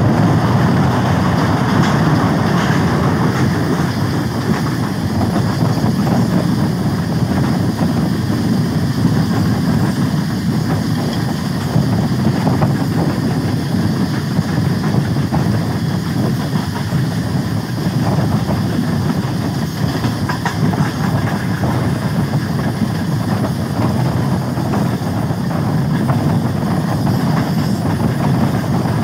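Steady low rumble of a train, with faint scattered clicks.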